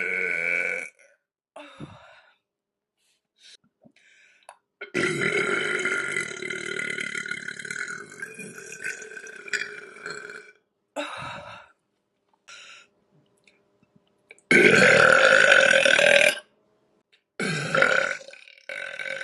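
A woman burping repeatedly. The first burp ends just after the start, a long one of about five seconds begins about five seconds in and tails off, and a loud two-second one comes about fourteen seconds in. Shorter burps fall between them and near the end.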